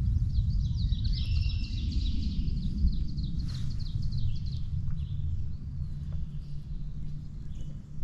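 A songbird singing a fast series of repeated high notes for about four seconds, then stopping, over a steady low rumble.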